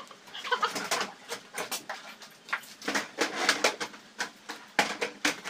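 Metal frame of a screen door knocked and rattled by hand as it is fitted into a doorway: a run of irregular sharp knocks and clatters.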